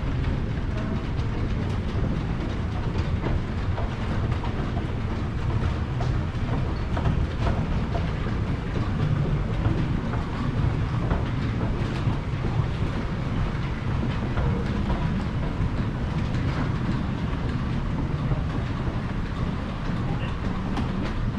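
Water-wheel-driven grist mill machinery running: the line shaft and belts turning, a steady low rumble with light, continuous clatter.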